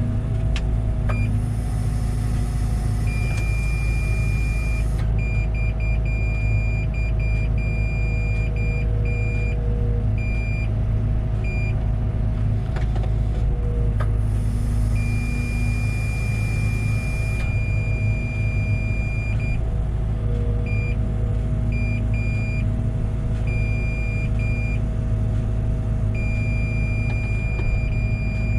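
Liebherr 914 Compact excavator's diesel engine running steadily under work. There are two spells of hiss, and a high steady tone repeatedly switches on and off.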